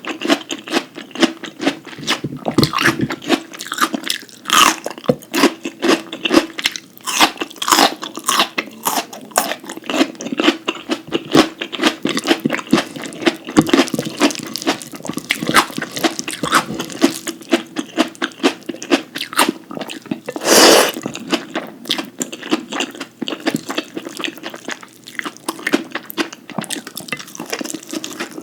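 Close-miked eating: rapid, continuous chewing and crunching of food, with one louder, longer burst about two-thirds of the way through.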